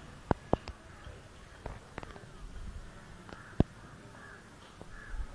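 Crows cawing several times in the background, the calls coming more often near the end. Sharp single clicks and knocks fall here and there through it; the loudest is a little after three and a half seconds in.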